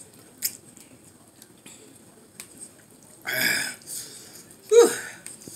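A man eating extra-spicy ramen noodles: a few faint clicks, a breathy hiss about three seconds in, then a short, loud voiced grunt that drops in pitch near the end.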